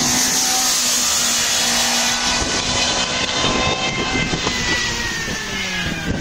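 A rally car's engine running hard as the car pulls away along the stage, over a loud rushing noise; its note falls in pitch over the last couple of seconds.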